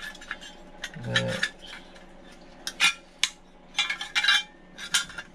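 Small metal parts of a car's centre console clinking and clicking as they are handled, a scatter of sharp clicks, most of them about three to five seconds in.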